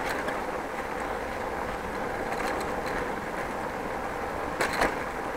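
Bicycle rolling over brick street paving, picked up by a camera on the handlebars: steady tyre and road noise, with a short rattling clatter about four and a half seconds in.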